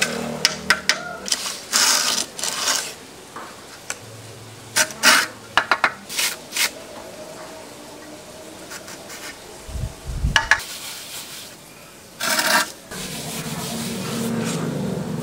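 Hand-working of wet cement render: a steel trowel scraping and tapping on the cement, with a dull thump about two-thirds through. Near the end comes a steady rubbing as a sponge float is worked over the cement surface.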